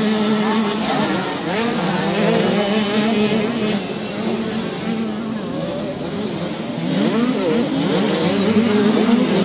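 Several small two-stroke 65 cc motocross bikes racing, their engines revving up and down with overlapping rising and falling pitches.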